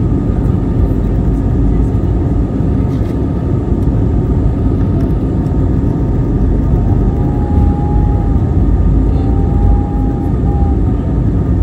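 Airbus A320neo's turbofan engines and the airliner's roll along the runway, heard from inside the cabin over the wing during the takeoff roll: a loud, steady rumble.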